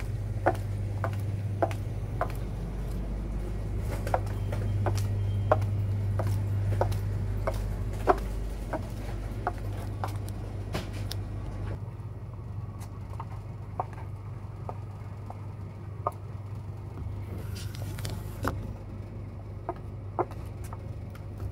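Stiletto high heels clicking on a hard floor with each walking step, about two clicks a second at first, then sparser and fainter from about halfway through. A steady low hum runs underneath.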